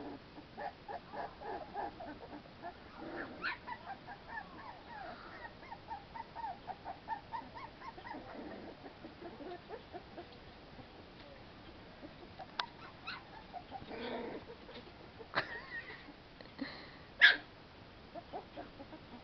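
American Pit Bull Terrier puppies whimpering and squeaking in quick, high little cries, busiest through the first half. A few sharp clicks come later, the loudest near the end.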